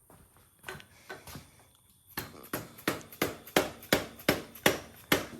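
A few scattered knocks, then a steady run of hammer strikes, about three a second, starting about two seconds in.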